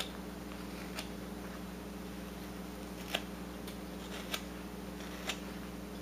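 A whittling knife taking short slicing cuts in a wooden bird carving: five or six crisp cutting strokes spaced unevenly, over a faint steady hum.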